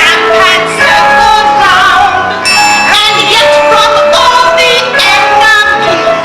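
Live stage-musical performance: a woman singing a melody with vibrato over instrumental accompaniment, in a large hall.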